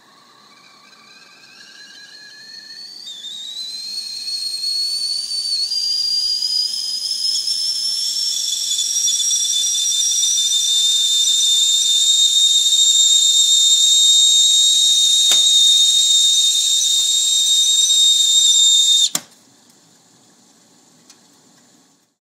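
Whistling tea kettle coming to the boil: the whistle starts faint and low, steps and glides up in pitch as it grows louder, then settles into a loud, steady, high whistle. Near the end it cuts off suddenly with a click, leaving a faint hiss.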